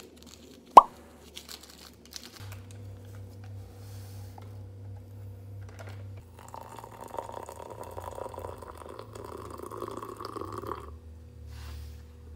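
Making coffee: a single liquid plop about a second in, then liquid poured into a ceramic mug for about four and a half seconds, stopping shortly before the end.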